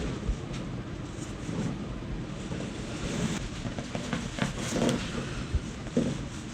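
Soft rustling and shuffling of clothing and body on a treatment table while a patient is positioned for a chiropractic spine adjustment, with a few faint clicks in the first couple of seconds.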